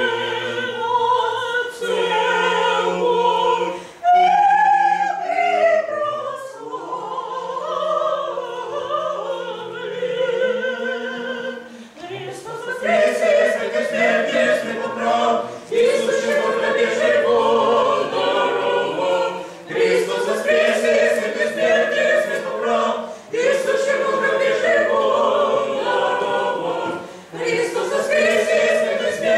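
Church choir singing Orthodox liturgical chant unaccompanied, several voices in harmony. About four seconds in the singing thins to fewer voices for several seconds, then the full choir comes back in, loud, at about twelve seconds, with short pauses between phrases.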